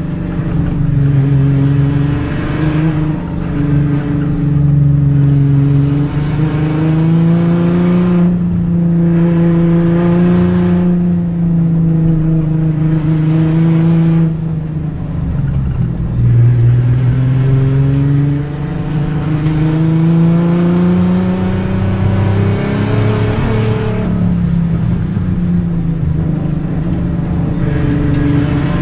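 Turbocharged Ford Barra inline-six race-car engine heard from inside the cabin under hard acceleration. The revs climb and fall repeatedly, with several brief drops where the throttle is lifted.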